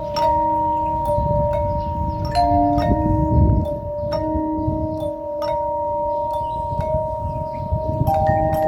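Church bells ringing: several bells struck in turn, each tone hanging on and overlapping the next.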